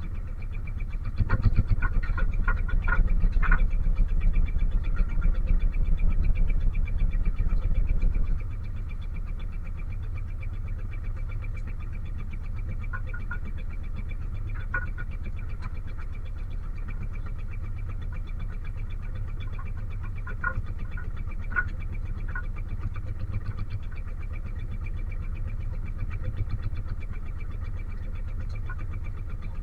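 Fishing boat engine running steadily with an even, pulsing beat. It runs louder for the first several seconds, then drops back to a quieter, steady run about eight seconds in. A few short clicks and knocks sound over it.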